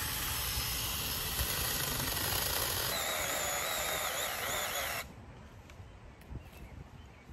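JPOWTECH 4-inch, 21-volt cordless mini chainsaw running while cutting brush. From about three seconds in, a whine wavers up and down over the motor and chain noise. The saw cuts off suddenly about five seconds in.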